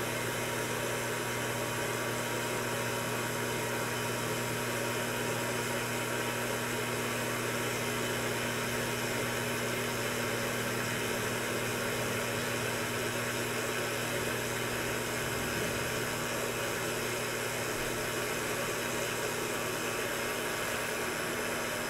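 Steady low hum with an even hiss and no separate events: the background noise of a small exam room with electrical equipment running.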